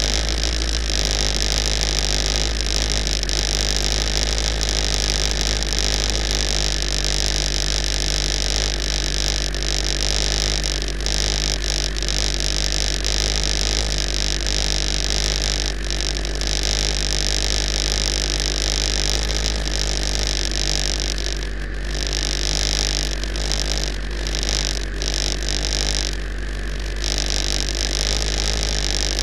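Superbike engine idling steadily with the bike at a standstill, a deep even drone under a constant hiss.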